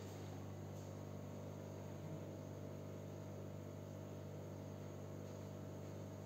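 Steady low electrical hum, mains-type, with a faint hiss over it; the cream being poured onto the chocolate makes no distinct sound.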